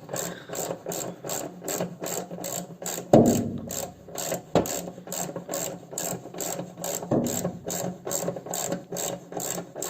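Nissan Qashqai front windscreen wipers and their linkage running, an even clicking of about three to four a second with a few louder knocks. The linkage pivots have just been cleaned and greased, and the wipers now run faster.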